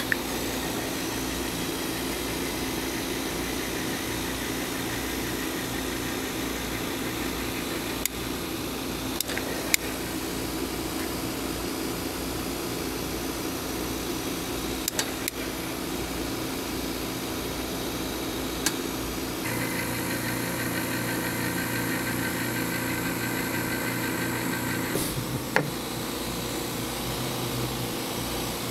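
Electric P-Tex extruder gun running with a steady motor hum as it auto-feeds and lays molten P-Tex into gouges in a ski base, with a few light clicks and taps. Its tone changes for several seconds about two-thirds of the way through, then settles back.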